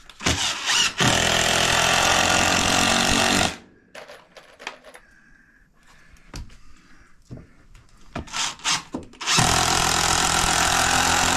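Cordless drill driving screws into wood blocking: a few short trigger blips, then a screw run in for about two and a half seconds. Light knocks follow, then more quick blips and a second screw driven for about two and a half seconds near the end.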